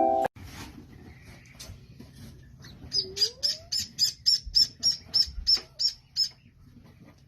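Small bird chirping: a quick, even run of about a dozen short, high chirps, three to four a second, with a lower rising call near the start of the run.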